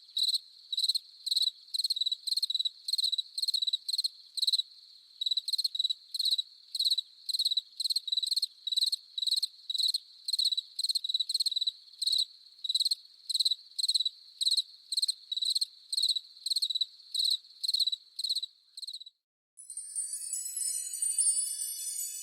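A single cricket chirping close up in steady short chirps, about two a second, each a high trill. The chirping stops near the end, and after a brief pause a sound-effect run of magic chimes starts ringing.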